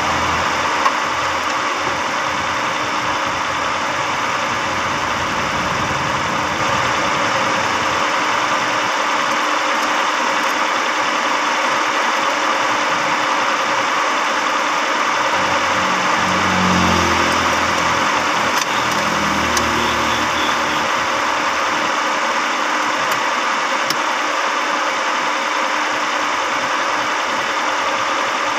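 Carbureted car engine idling steadily on a freshly cleaned carburetor while its idle is being set. The engine note shifts briefly a little past halfway.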